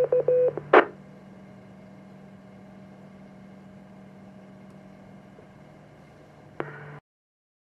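FM ham radio transceiver receiving a repeater: a few short beeps, then a brief burst of static about a second in as the signal drops and the squelch closes, followed by faint hiss. A click near the end, then the sound cuts off suddenly.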